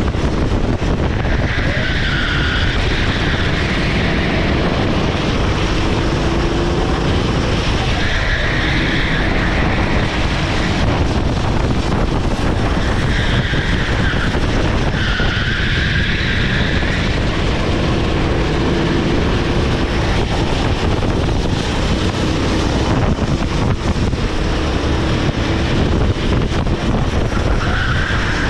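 Onboard sound of a rental kart's Honda GX390 single-cylinder four-stroke engine running hard, with steady wind noise on the microphone. Tyres squeal through the corners about five times, each squeal lasting a second or two.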